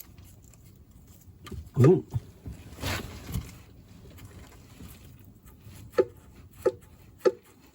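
Drops of oil and water falling from the Case 310F's open sump drain into a drain pan: a short splash, then single drips at a steady pace of under two a second near the end.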